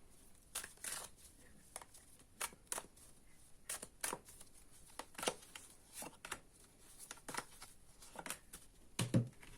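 Fortune-telling cards being handled and laid out: short, irregular card snaps and rustles, about one or two a second, with a louder tap near the end.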